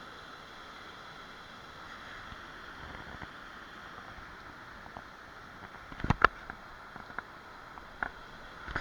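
Waterfall's steady rushing falls. About six seconds in, two sharp clicks, then a few fainter ticks.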